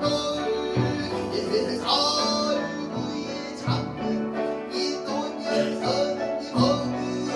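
Korean traditional ensemble music: a pansori voice over struck yanggeum hammered dulcimers and plucked and bowed strings, played in a canon arrangement, with several sharp struck accents.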